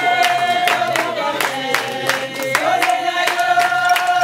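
Singing in long held notes, accompanied by steady rhythmic hand clapping.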